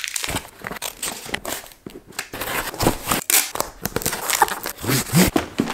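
Cardboard shipping box being folded and handled, with irregular crinkling and scraping of cardboard and packing.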